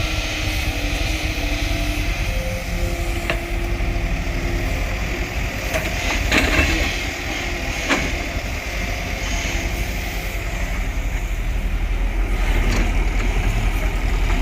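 Heavy diesel engine of earth-moving machinery running steadily, with a few knocks and clanks over it.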